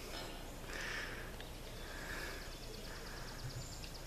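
Quiet outdoor background with a faint, rapid trill of high ticks, about eight a second, starting about a second and a half in.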